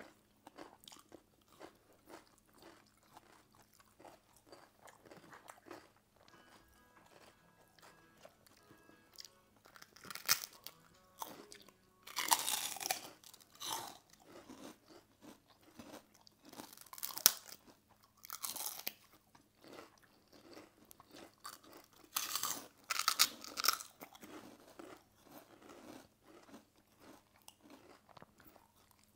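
People chewing and crunching food, with soft chewing throughout and several loud bursts of crisp crunching, the biggest about halfway through and again about three-quarters in.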